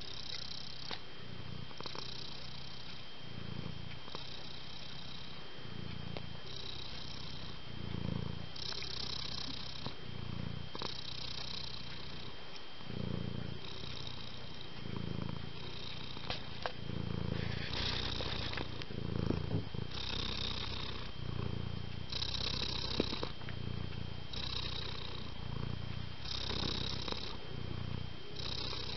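Long-haired tabby domestic cat purring close to the microphone, the purr swelling and fading with each breath about every second and a half.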